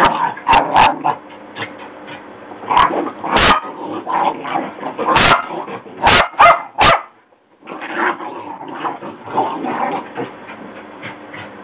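Jack Russell terriers and a Border Collie play-fighting: a run of sharp, loud barks in the first seven seconds, then lower growling after a brief gap.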